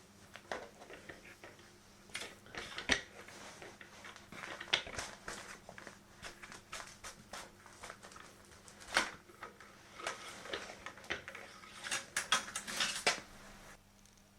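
Rifle-cleaning gear being handled on a bench: irregular clicks, taps and short scrapes of small hard metal and plastic parts, with a sharp knock about three seconds in, another about nine seconds in, and a quick run of clicks about twelve seconds in.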